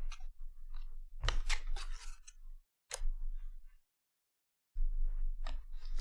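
Trading cards being handled: a run of short clicks and rustles as the cards are slid, tapped and sorted, with a sharper click about three seconds in. The sound drops out completely for about a second a little after that.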